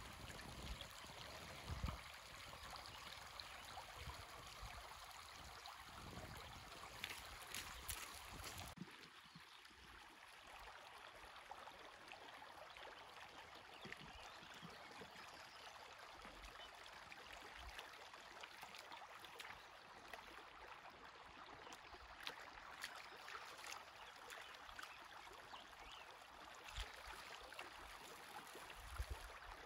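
Faint, steady trickle of a shallow creek running over stones, with a few soft low knocks in the first several seconds.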